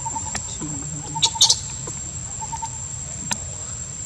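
Insects droning with a steady high tone, with two short high-pitched squeaks from a young monkey in quick succession about a second and a half in.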